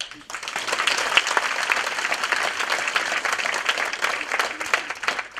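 Audience applauding: many hands clapping in a dense, even patter that swells in just after the start and fades out near the end.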